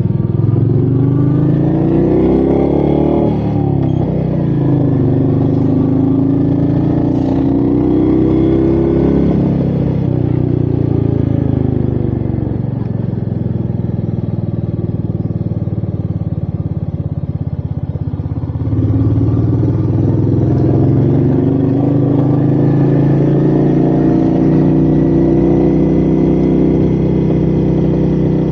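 Royal Enfield Meteor 350's single-cylinder engine pulling through the gears: its pitch rises, drops abruptly at each upshift twice in the first ten seconds, eases off through a lower, steadier stretch, then climbs again under throttle from about two-thirds of the way in.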